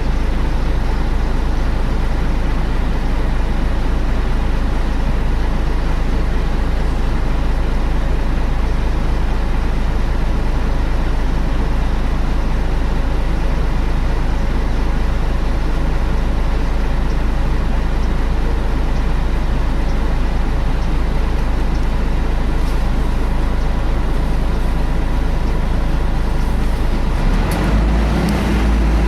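Scania L113 single-decker bus heard from inside while under way: a steady rumble of engine and road noise. A steady hum sets in near the end.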